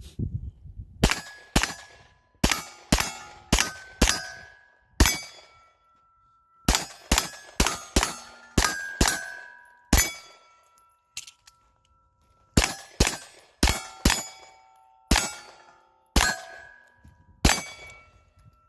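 Open-division competition pistol fired in quick runs at steel targets. Each sharp shot is followed by the ringing clang of a hit steel plate. The shots come in short strings of several rounds, about two a second, with brief pauses between strings.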